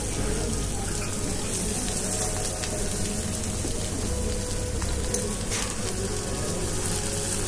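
Broth boiling hard in a hot pot, a steady bubbling and sizzling hiss.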